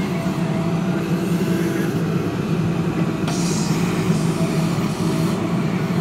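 JCB backhoe loader's diesel engine running steadily under load while its backhoe bucket digs into wet soil, with a short hiss about three seconds in.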